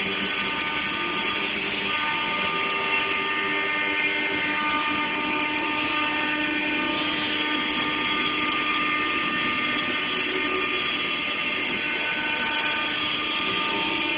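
Heian multi-spindle CNC router running, its spindles giving a steady high-pitched whine of several tones over a lower hum.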